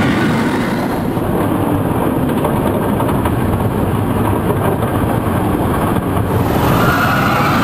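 Steel roller coaster running at speed, heard from on board: a loud, steady rush of wind and wheel rumble on the track.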